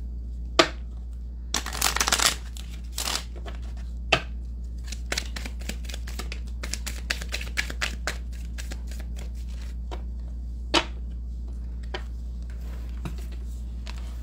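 A deck of oracle cards being shuffled by hand, with a dense run of riffling about two seconds in and scattered sharp snaps and light taps as cards are pulled and laid down on a table.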